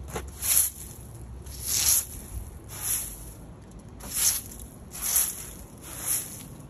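A broom sweeping standing water across wet pavement, about one swishing stroke a second.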